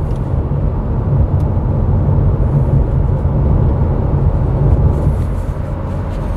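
Steady road and engine rumble of a car driving at speed, heard from inside the cabin.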